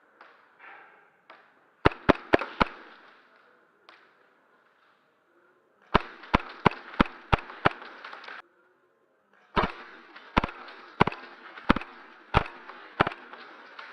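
Airsoft gas-blowback pistol firing in quick strings: four rapid shots, then a fast run of about seven, then about seven more at a slower, steadier pace.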